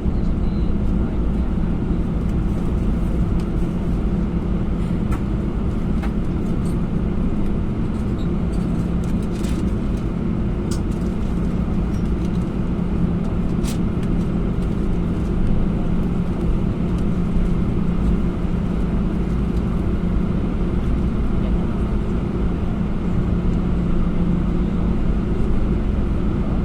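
Cabin noise of an Airbus A321 taxiing: a steady low rumble and hum from its CFM56 engines at idle and the rolling airframe, with a few faint clicks and rattles from the cabin.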